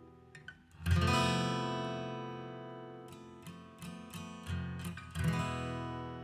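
Acoustic guitar music: a strummed chord about a second in that rings out, a few picked notes, then another strummed chord.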